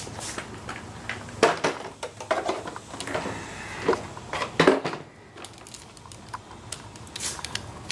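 Plastic car door trim and the power-window switch panel being handled and pried: a series of sharp clicks, knocks and scrapes, heaviest in the first five seconds, then a few light ticks.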